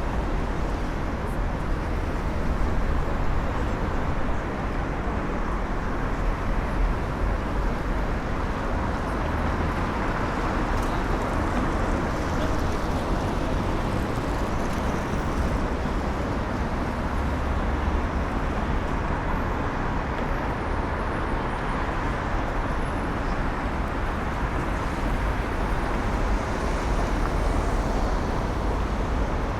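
Busy city street ambience: a continuous din of road traffic with a deep low rumble, swelling gently now and then.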